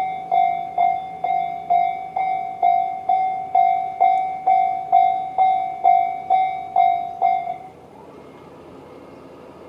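Electronic level-crossing warning bell of the Tobu type known as 'Tobu sound C', dinging at about two strikes a second, then stopping about three-quarters of the way through as the crossing clears. A faint steady noise is left after it.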